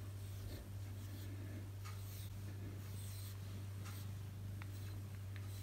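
FURminator deshedding tool's steel edge raked through a British shorthair cat's coat, a faint scratchy rasp with each stroke, about one stroke a second, over a steady low hum.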